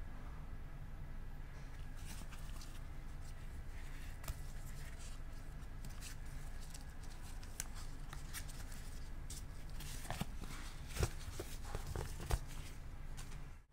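Quiet handling noise from gloved hands working a smartwatch's rubber strap and foam box insert: light scattered rustles and clicks, with a few sharper knocks about two-thirds of the way through, over a steady low hum.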